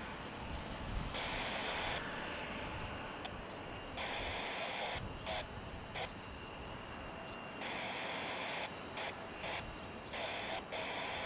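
Bombardier CRJ regional jet's two rear-mounted turbofans running at taxi power, a steady rumble and hiss. Louder bands of hiss cut in and out abruptly several times.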